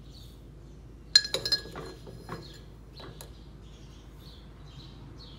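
Metal spoon clinking against a glass cup under a muslin cloth while loose tea leaves are spooned in: one sharp, ringing clink about a second in, a few lighter clinks just after, and one more click about three seconds in.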